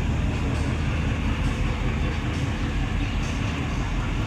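Passenger ship's engine running with a steady low rumble, with a hiss of wind or water above it.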